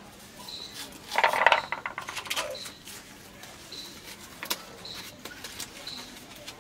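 Small clicks and rattles of dried whole spices being broken and handled by hand over a steel karai, with a sharp snap about four and a half seconds in. A brief loud sound comes about a second in, and a faint high chirp repeats roughly once a second.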